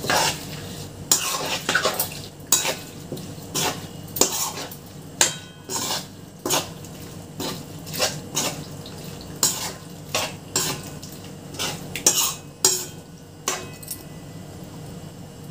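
A steel spoon clinking and scraping against a metal kadai while raw mutton is mixed into its spiced yogurt marinade, in irregular strokes about once or twice a second that stop near the end.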